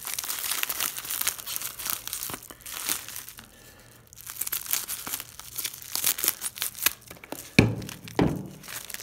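Crinkling and rustling of Sealed Air padded plastic mailers being handled and cut open with scissors, easing off briefly midway. Two soft thumps near the end as the mailers are set down.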